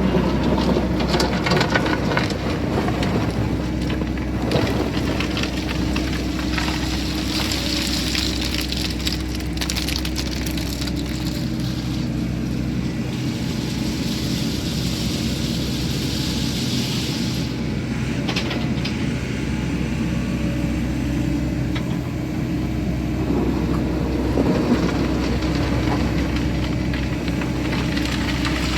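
Sany SY80 excavator's diesel engine running steadily while its hydraulics work, with a high hiss for about ten seconds in the middle and scattered knocks.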